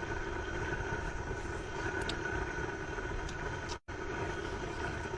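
High-power LPG blast burner (猛火炉) burning steadily under a hotpot, a constant rushing hiss with a faint whistle-like tone. It breaks off for an instant about two-thirds of the way through.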